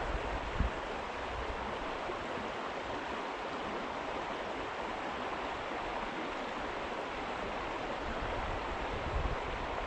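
Steady rush of flowing water in a small stream.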